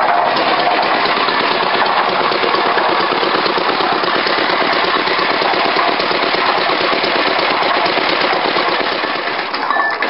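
Lister stationary engine on a 1942 Liner concrete mixer running steadily, a rapid even firing beat, dropping slightly in level near the end.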